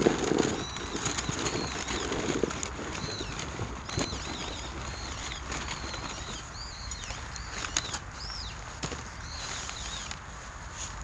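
Pine cones burning in a clay shichirin brazier: a steady hiss of open flame with a few sharp crackles. Through it a small bird chirps over and over in short, high notes.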